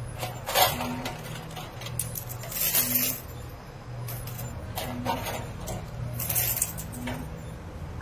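Metal peso coins clinking and jangling in handfuls as they are gathered from a coin pusher's payout tray, in several separate bursts. A low repeating electronic tune runs underneath.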